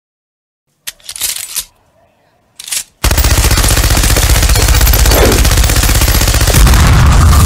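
Machine gun firing a long continuous burst of rapid shots, starting about three seconds in. Before it come two short noisy bursts.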